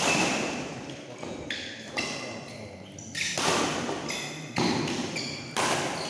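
Badminton rally: rackets striking the shuttlecock about once a second, each hit ringing on in a large hall, with short high squeaks between the hits.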